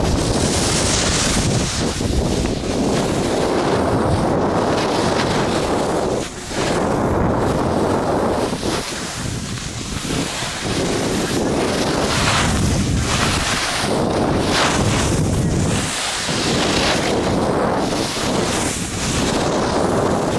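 Wind rushing over a handheld camera's microphone during a snowboard run, mixed with the board's edges scraping and hissing over spring snow. The noise surges and eases every few seconds as the rider turns.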